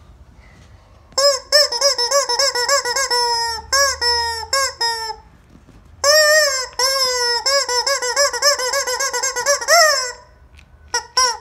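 Squeaky rubber chicken toy squeezed again and again: short squawks that rise and fall in pitch, about four a second, in two long runs with a pause between, some drawn out longer.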